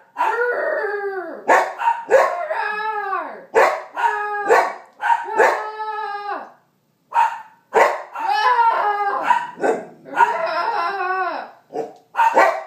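Bernedoodle puppy howling about ten times in a row, each call drawn out for about a second, rising then falling in pitch.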